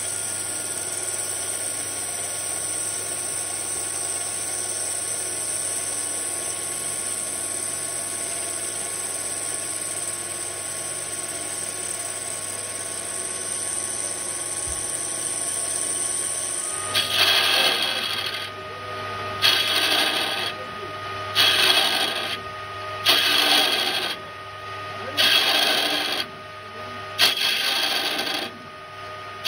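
Metal lathe cutting steel with a carbide tool: a steady machining hiss with a high whine. From about two-thirds of the way in it changes to about eight short loud cuts, roughly every second and a half to two seconds, as the tool makes repeated passes, as in thread cutting.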